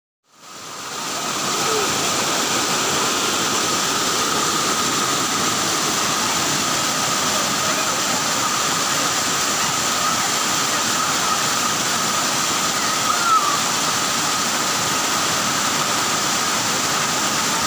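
Waterfall water rushing steadily down a sloping rock cascade, fading in over the first second or two.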